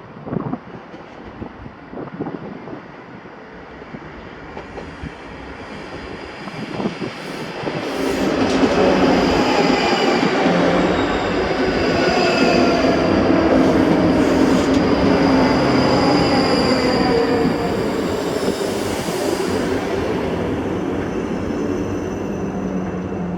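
A ScotRail electric passenger train pulling into the platform, growing loud about eight seconds in, its whine falling in pitch as it slows.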